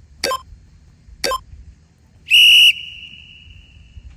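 Interval workout timer counting down: two short beeps about a second apart, then a loud, long, high beep marking the change of interval, trailing off faintly.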